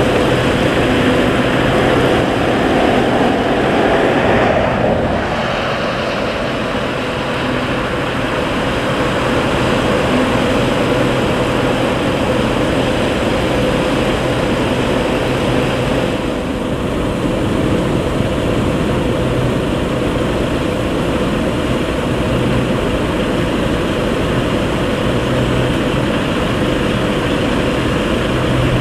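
Loading machinery running with a steady drone and a constant hum. The noise swells for a few seconds and eases off about five seconds in.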